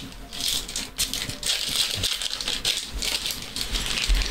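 Chromium trading cards being handled and flipped through by hand: a dense, irregular rattling and rustling with many small clicks.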